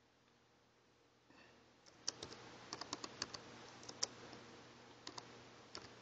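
Computer keyboard keys being typed: faint, irregular keystrokes starting about two seconds in, over a low hiss.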